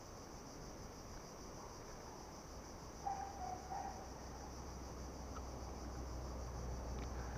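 Insects chirring steadily in a high, even band. About three seconds in there is a brief wavering tone, and a low rumble rises in the second half.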